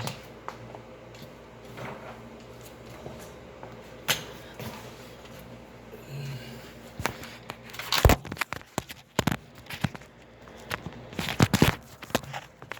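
Scattered knocks, clicks and clatter of hands handling tools and parts, with the loudest bunches of knocks about eight and eleven seconds in.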